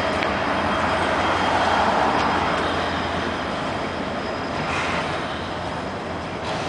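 Freight train of autorack cars rolling past: a steady rumble and rush of steel wheels on rail, swelling slightly about two seconds in and easing off after.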